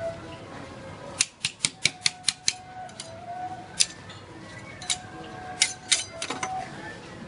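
Metal spatulas chopping red fruit against the frozen steel plate of a rolled ice cream pan: sharp metal-on-metal clacks, a quick run of about six a second in, then scattered strikes and a few close pairs.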